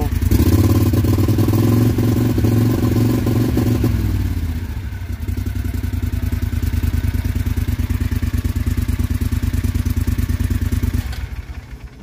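John Deere XUV 625i Gator utility vehicle engine running, louder and faster for the first four seconds or so, then settling to a lower steady speed, and falling off about eleven seconds in. The machine runs rough and misfires, which the mechanic traces to a throttle-body stepper motor going bad internally.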